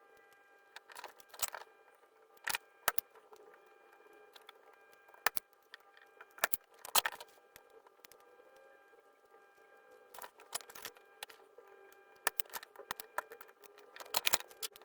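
Irregular light clicks and taps of small hard objects being handled, coming in scattered clusters, over a faint steady high whine.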